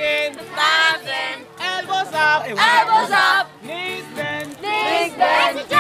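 A group of young men and women singing a chorus song together, loud, in short phrases with brief breaks between them.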